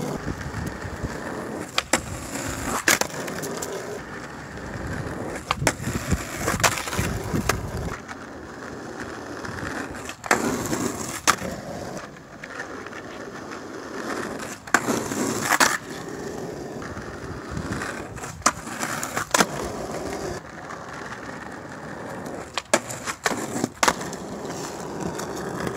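Skateboard wheels rolling over rough asphalt with a steady rumble, broken every few seconds by sharp clacks of the board hitting the pavement and concrete slabs.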